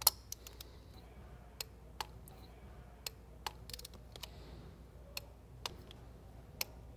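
Faint, irregular ticks of a ratcheting torque wrench being worked back and forth as spark plugs are torqued down to 22 newton meters, the sharpest click right at the start.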